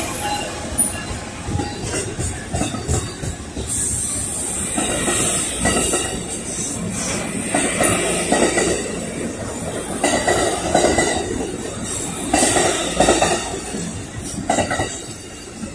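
Amtrak Pacific Surfliner passenger train's bi-level coaches rolling past close by: steel wheels clicking over rail joints under a steady rumble and a high whine from the wheels on the rails, easing slightly near the end as the train moves away.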